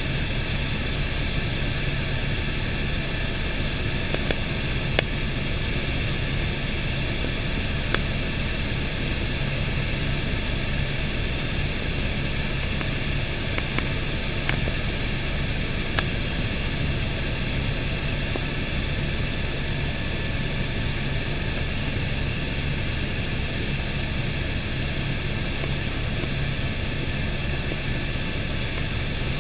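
Helicopter engine and rotor running steadily in cruising flight, heard inside the cabin as a constant rush of noise with a steady low hum beneath it. A few faint ticks come through about 5, 8 and 16 seconds in.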